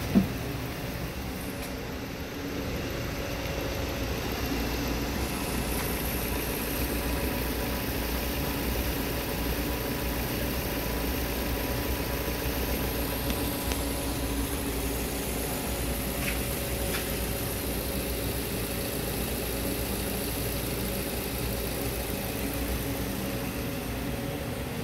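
Mazda 2.5-litre DOHC 16-valve inline-four engine idling steadily. A sharp click sounds right at the start.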